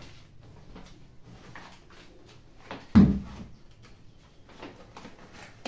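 Shopping items being handled and put down, with faint rustles and knocks and one sharp thump about three seconds in.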